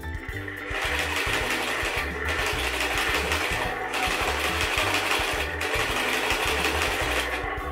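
Battery-powered toy monster truck (Spin Master's The Animal) running its electric motor inside its cardboard box, a whirring rattle that breaks off briefly every couple of seconds as it works to push its way out.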